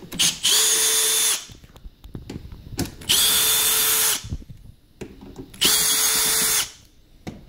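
Cordless drill with a long screwdriver bit backing screws out of the plastic housing of an espresso machine, in three short runs of about a second each with a steady motor whine.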